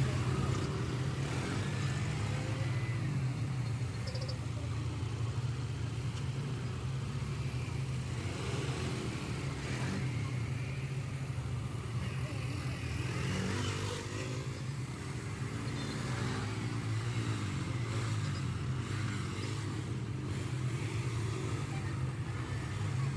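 Car engine running with a steady low hum, heard from inside the moving car, with street traffic noise around it.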